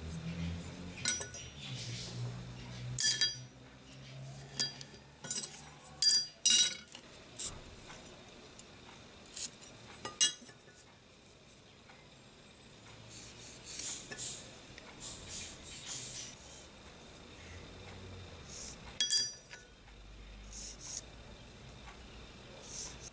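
Pieces of steel clinking against a flat steel plate as they are set down and shifted, each clink with a short metallic ring. There is a run of sharp clinks in the first ten seconds, one more near the end, and faint handling between.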